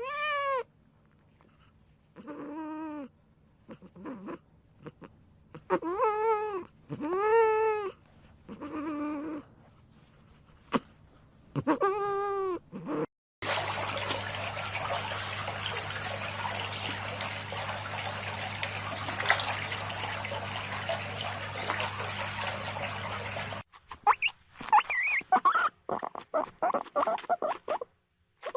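A cat meowing again and again, each meow rising and falling in pitch. About halfway through, the meows stop and a steady hiss with a low hum runs for about ten seconds, then quick chirping calls near the end.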